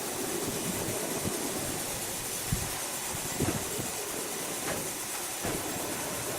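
Sawmill machinery running with a steady rushing noise and a few dull knocks.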